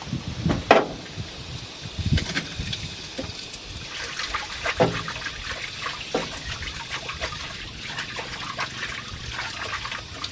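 Water splashing into a stainless-steel sink as she washes something at the basin, a steady run with small splashes from about four seconds in. A few knocks of handled items come before and during it.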